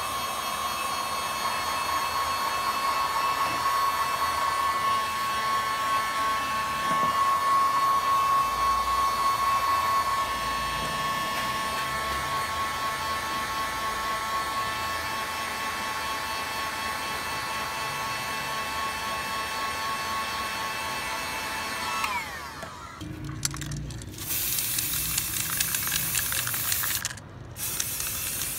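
Handheld heat gun running: its fan motor and rushing air with a steady whine, which falls away as it is switched off near the end. Then an aerosol spray paint can hisses in short bursts.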